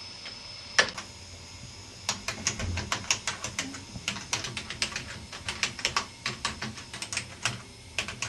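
Typing on a computer keyboard: quick, irregular keystrokes that start about two seconds in, after a single sharper click.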